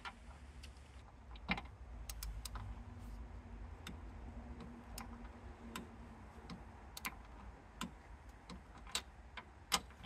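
Irregular sharp clicks, a dozen or so, from a ratcheting torque wrench on a 12 mm socket tightening the front strut brace mounting nuts to torque, over a faint low hum.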